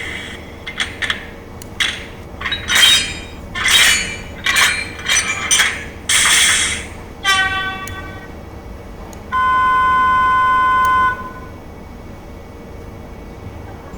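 HXD1C electric locomotive sound effects from an N scale model's DCC sound decoder, played through its small speaker. A run of short clanks and hisses comes first, then a brief ringing chime, then a steady high tone for about two seconds.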